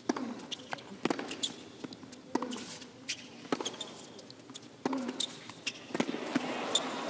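Tennis rally on a hard court: the ball is struck back and forth by racquets about once every second and a bit, with bounces in between. The crowd noise swells near the end.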